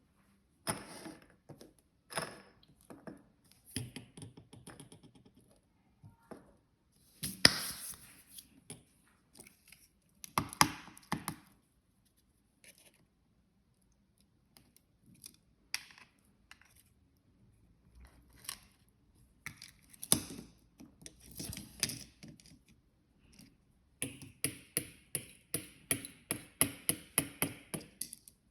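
Small hard objects being handled close by: irregular clicks, taps and light knocks, with a few louder knocks, then a quick run of regular ticks, about three or four a second, near the end.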